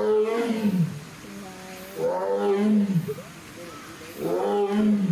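Female Amur tiger roaring: three loud, drawn-out calls about two seconds apart, each about a second long, rising and then falling in pitch.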